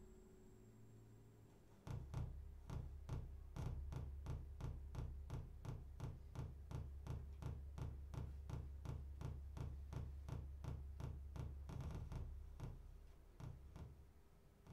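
Live electronic music from a tabletop rig of mixer and effects boxes: a steady pulse of clicks, about three a second, over a low drone. It starts about two seconds in, thickens briefly and fades out near the end.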